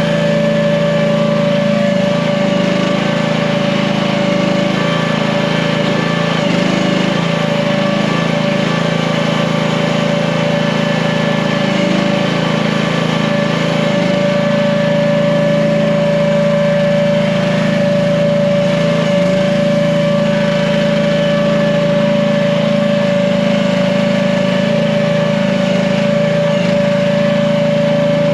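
Small gasoline engine of an AGT H15 mini excavator running at a steady speed, with a strong steady tone over it.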